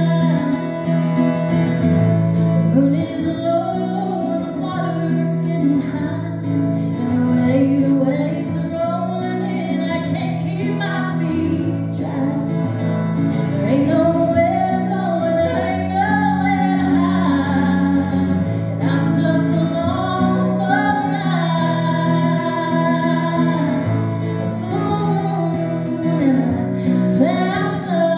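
A woman singing a song with acoustic guitar accompaniment, performed live; her sung phrases rise and fall over steadily held chords.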